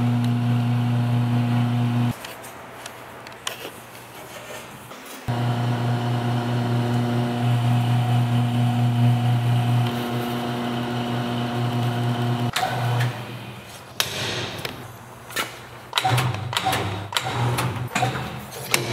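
Motor drive of an Eagle CP30 roll tube bender running with a steady hum. It cuts off about two seconds in, starts again a few seconds later and stops about two-thirds of the way through. A run of sharp metal knocks and clicks follows near the end.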